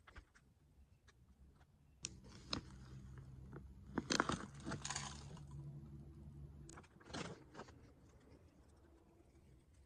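Faint crinkling of a plastic seed bag and loose grass seed rattling as it is poured into a hand. The handling is loudest around four seconds in, with scattered small clicks before and after.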